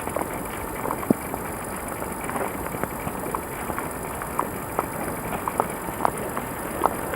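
Footsteps crunching through leaves and twigs on a forest floor, a scatter of small irregular cracks and snaps over a steady hiss from the camcorder's recording.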